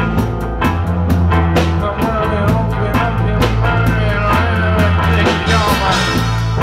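Live reggae band playing, with drum kit, bass guitar, electric guitar and keyboard keeping a steady beat under held bass notes. A sung vocal line comes in about two seconds in.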